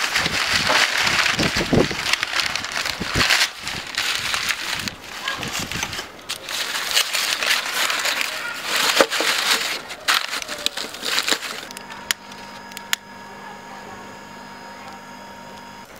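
Dry vine cuttings and crumpled paper rustling and crackling as they are handled and packed into a metal grill box, with sharp snaps of twigs now and then. It goes much quieter about twelve seconds in, leaving a couple of faint clicks.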